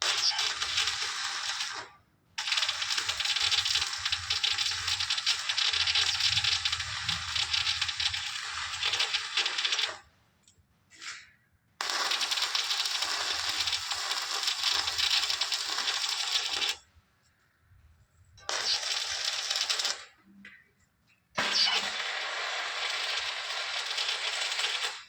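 Electric arc welding: a dense, sizzling crackle that runs for several seconds at a time, stopping and restarting four times with short silent breaks.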